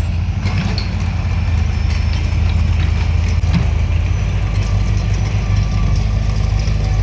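Bulldozer's diesel engine running steadily with a low, even drone.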